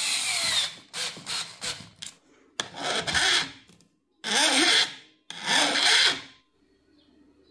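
18V Panasonic EY3551 cordless circular saw motor winding down with a falling whine. Then come a few light clicks and three short rasping, scraping noises, each under a second.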